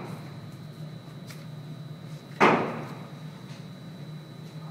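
A single pistol shot about halfway through, sharp and loud, with a short echo off the walls of the indoor range.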